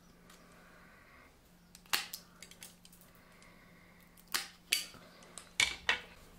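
Aviation tin snips cutting a small piece of aluminium sheet: a few sharp snips, one about two seconds in and several more between four and six seconds.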